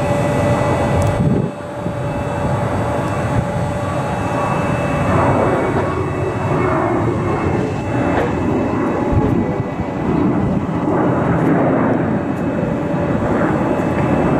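Jet engine noise from a United Boeing 737-800 airliner's CFM56 turbofans, a loud, steady noise with slight swells. A steady tone in it fades out in the first couple of seconds.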